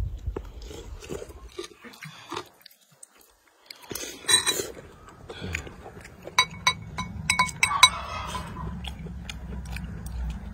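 Metal spoons clinking against ceramic soup bowls, several sharp ringing clinks in the second half, along with the chewing sounds of people eating.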